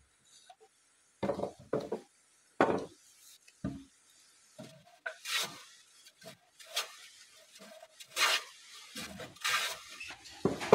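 Teak planks knocking and scraping against each other, wood on wood. A loose plank is set on the edge of a jointed panel and slid along it to test the fit. A few sharp knocks come in the first few seconds, then several rasping scrapes.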